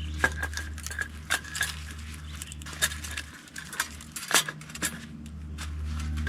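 Irregular light clicks and knocks from short pieces of cut wood being handled and set down, over a low steady hum.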